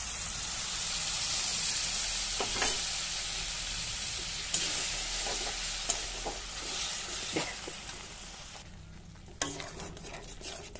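Whisked yogurt sizzling as it goes into hot oil and fried spice paste in a wok, stirred in with a steel spatula. The sizzle is loudest at first and dies away over the last few seconds, when a few clicks and scrapes of the spatula against the pan come through.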